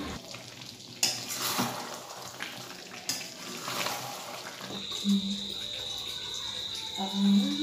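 A metal spatula stirring chicken-and-potato curry in a metal kadai, with irregular scrapes and clanks against the pan. A little past halfway a steady high insect trill sets in and carries on.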